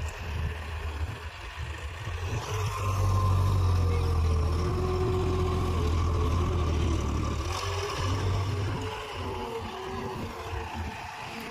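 Tractor diesel engine working a front-end loader, pulling harder and louder from a few seconds in as the loaded bucket is lifted and emptied, then easing off near the end.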